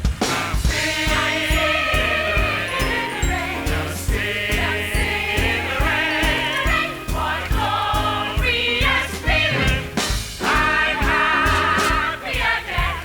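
Musical-theatre song: a swing-style band with a steady beat under several voices singing with vibrato.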